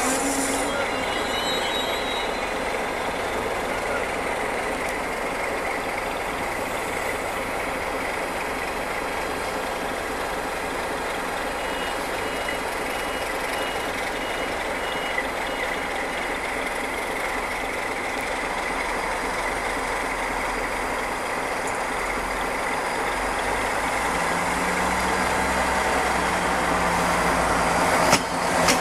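Siemens Desiro diesel multiple unit approaching slowly, with a steady rumble of engine and wheels. The engine note grows louder over the last several seconds as the railcar draws level, and a single sharp click comes near the end.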